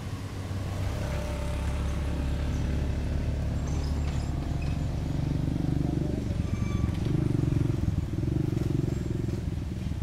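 A hydraulic excavator's diesel engine running steadily. About halfway through, its note rises and grows louder as it works, then eases near the end.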